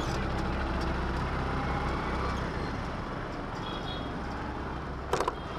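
Motorcycle engine running steadily while riding, with street traffic noise around it; two sharp knocks about five seconds in.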